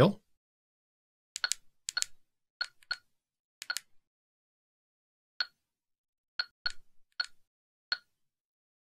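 Short sharp clicks, about a dozen and several in quick pairs, from the keypad buttons and knob of a Wouxun handheld GMRS radio as a channel name is entered letter by letter.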